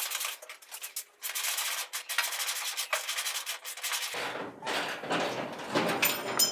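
Power drill running on the car's panel bolts, making a harsh, scratchy grinding noise broken by short pauses. About four seconds in the sound changes to a fuller, deeper noise.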